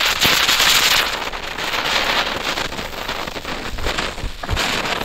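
Nico Silberwirbel ground spinner firework hissing as it sprays sparks on concrete: loudest in the first second, easing, then swelling again near the end.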